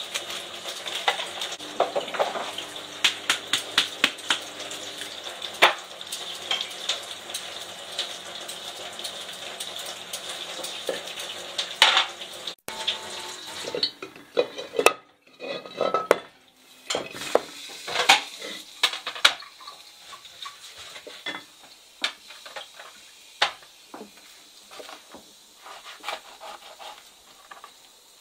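Oil sizzling in a large metal pot on the stove, as a steady hiss, with frequent clinks of metal utensils and lids. About halfway through the sizzle drops away and sparser sharp clicks and knocks follow, from a knife on a plastic cutting board.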